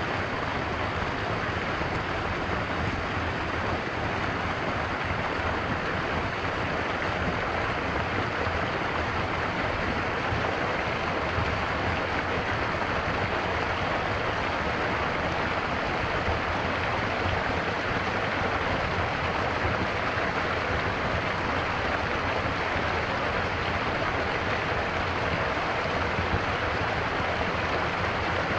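Stream water flowing and splashing in a steady, unbroken rush.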